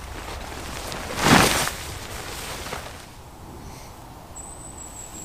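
A brief, loud rustling swish about a second in, then soft rustling, with a thin high whistle near the end.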